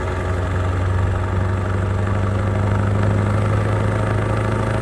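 A heavy engine running steadily at low revs, with a deep, even hum.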